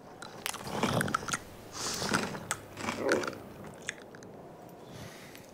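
Cartoon camel chewing, with crisp crunching bites in several bursts that die away after about three and a half seconds.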